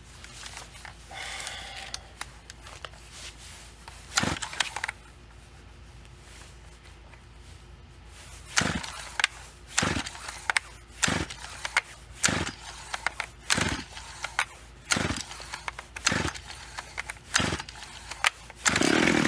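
FarmerTec 200T two-stroke chainsaw being pull-started: the recoil starter is yanked again and again, about one pull a second. Near the end comes a short, louder burst as the engine briefly fires on carb cleaner sprayed into the cylinder, a sign that the carburetor is not feeding fuel.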